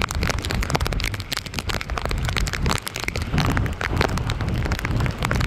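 Wind buffeting the microphone in a steady low rumble, with dense irregular crackling over it.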